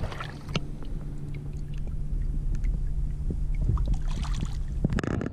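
Small splashes and water lapping against the side of a bass boat as a bass is let go by hand and swims off, with many light clicks and drips over a steady low hum.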